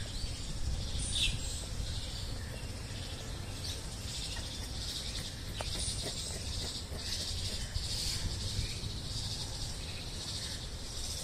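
Steady high chirring of insects, with a low rumble underneath and a couple of brief high chirps.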